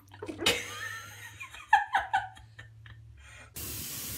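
Baby giggling and cooing in short pitched bursts. About three and a half seconds in, a kitchen tap starts running in a steady stream, cutting in suddenly.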